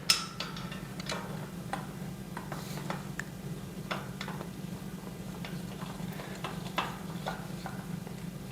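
Light, irregular clicks and ticks of small steel shelf parts and a screw being handled and turned in by hand, over a steady low hum.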